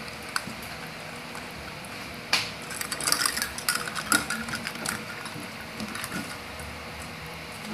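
A cat scrambling and pawing on the bedding of a wire cage: scratchy rustling with quick light clicks, busiest from about two to five seconds in, then sparse.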